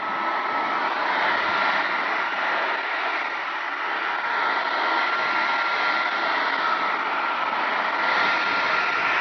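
Hair dryer blowing steadily at a painted plastic model body, a rush of air with a thin steady whine from its motor.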